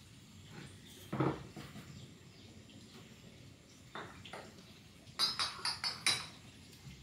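Objects being handled: a single knock about a second in, a soft tap about four seconds in, then a quick run of light clinks and taps over a second near the end.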